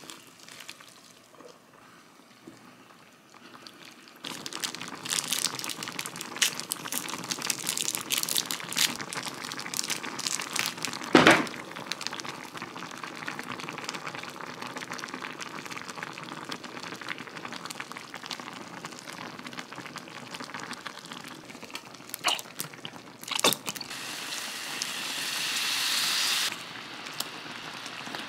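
Cream sauce simmering with udon noodles in a nonstick frying pan, a dense crackling bubble that starts after a quiet first few seconds. Scattered sharp clicks, the loudest about halfway through, and a brighter hiss for a few seconds near the end.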